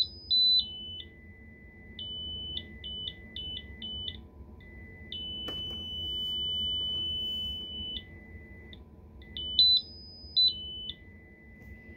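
Piezo speaker from a carbon monoxide detector, driven by a signal generator, sounding pure beeps that jump between a few pitches every fraction of a second. A higher tone is held steady for about three seconds around the middle, and a lower tone is held steady near the end.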